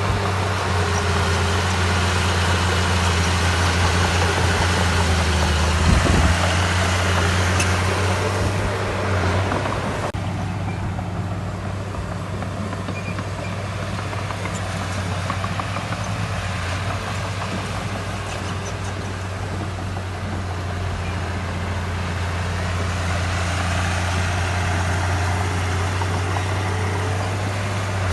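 Heavy construction machine's diesel engine running steadily with a deep, even hum, a knock about six seconds in; the higher clatter and noise fall away about ten seconds in, leaving a lower steady rumble.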